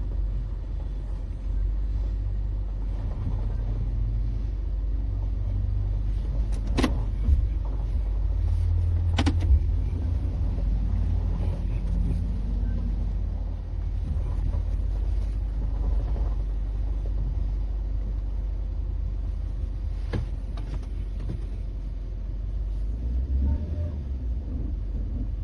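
A vehicle driving: a steady low rumble of engine and road noise, with a few sharp knocks, about seven, nine and twenty seconds in.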